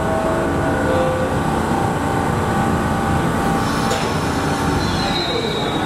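New York City subway train running, a steady loud rumble with faint whining tones over it; a higher whine glides near the end.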